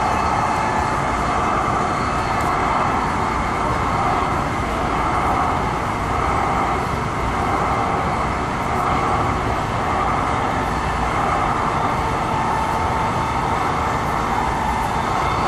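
Inside a Metro Gold Line P2550 light rail car running between stations: the steady rumble of wheels on rail and the car's running gear, with a constant mid-pitched hum over it.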